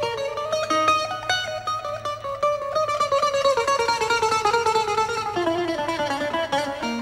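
Bouzouki playing a fast, picked melody, a quick run of notes that steps down in pitch over the second half.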